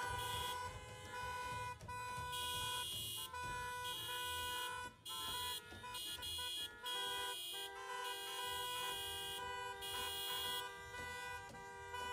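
Several car horns honking at once at different pitches, in long overlapping blasts that start and stop irregularly, so the honking barely lets up.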